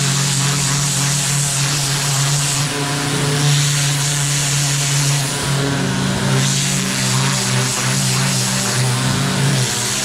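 HiKOKI FAW110 pressure washer running: a steady motor hum under the hiss of the water jet blasting a work glove on a stainless steel sink top. The hiss swells and eases several times as the spray moves over the glove.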